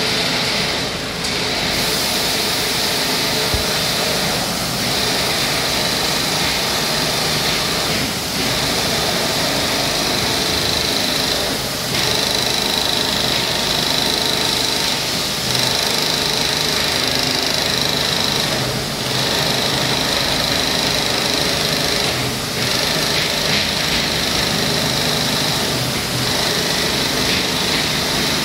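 BK-30 computerized quilting machine running, its Pfaff 1245 sewing head stitching steadily as it is driven across the framed fabric. There is a steady high whine, with brief dips about every three and a half seconds.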